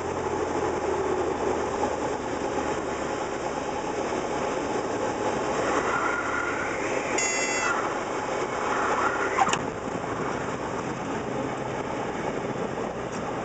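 Cessna 172 cockpit noise, a steady drone of engine and airflow during the landing flare. The stall warning horn briefly whistles around six to eight seconds in, and a single thump about nine and a half seconds in is the wheels touching down on the runway.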